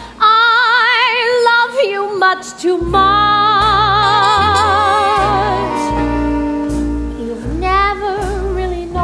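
A woman singing a slow ballad live on stage, holding long notes with wide vibrato. An instrumental accompaniment with a bass line comes in about three seconds in.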